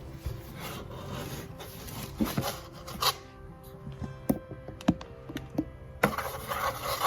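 Packaging being handled: rubbing and scraping with small knocks as things are lifted out of a product box. In the middle comes a quieter stretch with a few steady tones, which cuts off abruptly about six seconds in.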